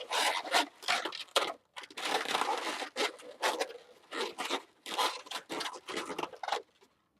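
Inflated latex twisting balloons rubbing against each other and the hands in a run of short bursts as they are twisted and locked together, stopping about six and a half seconds in.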